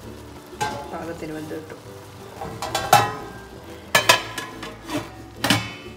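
Metal ladle scraping and knocking in an aluminium pot of biryani rice whose water has nearly boiled off. From about three seconds in, a steel plate lid clanks onto the pot several times with a brief metallic ring.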